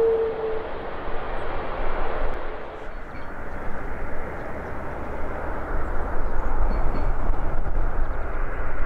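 An Airbus A330's jet engines hum a steady tone at taxi power that dies away under a second in. Then an Air Canada Airbus A220-300 on final approach gives a steady jet engine rush with a low rumble, its Pratt & Whitney geared turbofans growing louder as it nears.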